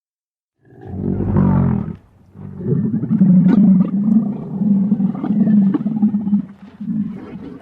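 Camel calling: a call about a second long, then after a brief pause a longer call of about five seconds, made of low throaty pulses about twice a second.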